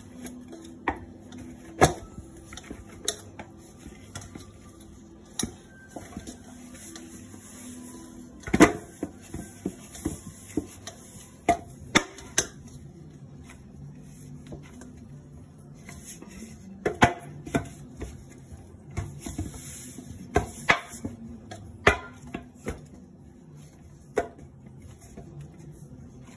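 Maida dough being kneaded by hand in a stainless-steel bowl: irregular sharp clinks and knocks of the bowl and the bangles against it, with the loudest knock about a third of the way in.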